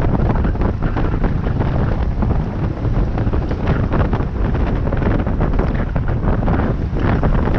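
Loud wind buffeting on a GoPro Hero 7's microphone from riding a bicycle at speed.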